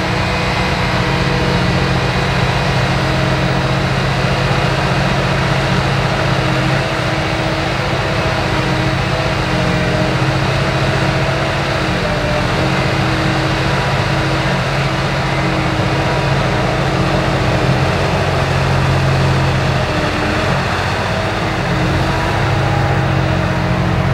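Cat 6020B hydraulic mining shovel running under load as it swings and digs: a loud, steady heavy-engine drone whose pitch shifts slightly now and then.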